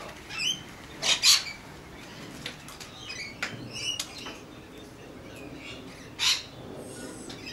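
Magpies calling in short squawks: two loud ones close together about a second in, softer scattered calls in the middle, and another loud squawk near the end.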